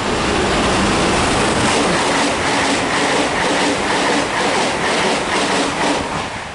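GWR Intercity Express Train (IET) passing through the station at speed: a loud rush of train noise with a rapid, regular clatter of wheels, about four beats a second, dying away near the end.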